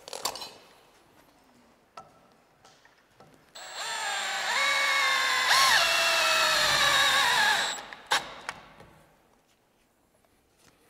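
Milwaukee M12 cordless driver running for about four seconds, driving a screw into the wooden handrail, its motor pitch dipping and recovering as the screw bites, then stopping with a click. A short clatter comes at the start.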